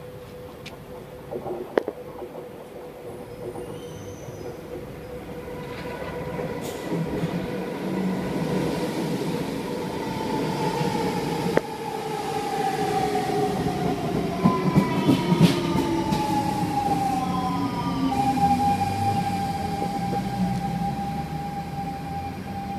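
Siemens C651 metro train arriving and braking. The whine from its GTO-VVVF traction inverters glides steadily down in pitch as it slows, over rumbling and clattering wheels. It settles into a steady tone near the end as the train draws alongside.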